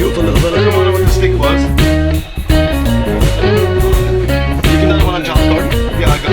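Background music: a guitar-led track with a bass line and a steady beat.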